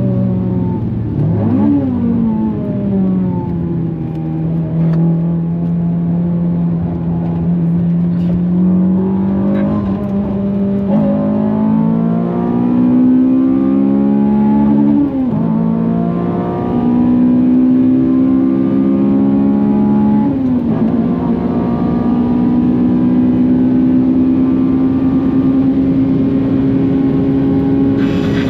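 Honda Civic FN2 Type R's K20 four-cylinder engine under hard acceleration, its pitch dropping and climbing again at gear changes about a third, half and two-thirds of the way through. Near the end it holds one long, slowly rising pull.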